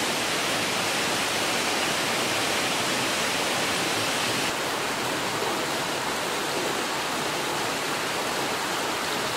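Steady rush of a mountain stream flowing over rocks.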